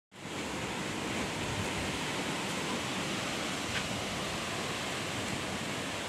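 Strong wind rushing through the leaves of tall trees and banana plants, a steady, even rush of foliage noise.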